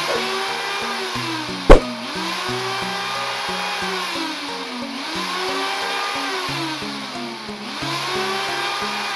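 Old metal electric drill's motor, fitted with new carbon brushes, run in spurts on the trigger: it speeds up, holds and winds down again about every two seconds. One sharp click comes just under two seconds in.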